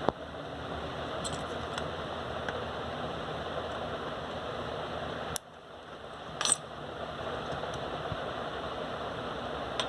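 A few sharp clicks and knocks from the plastic case of a Saregama Carvaan music player as its front grille comes off and the case is opened, over a steady hiss. One click comes about a second in and two more around the middle.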